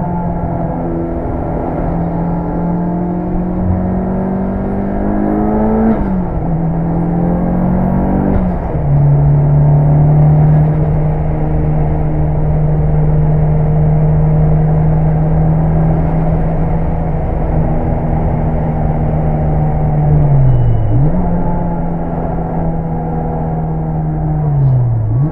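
Mitsubishi Lancer Evolution 6 Tommi Makinen's turbocharged four-cylinder engine pulling hard. The revs climb, drop sharply at a gear change about six seconds in, climb again and shift once more a few seconds later. It then holds a steady note, with short dips in revs late on.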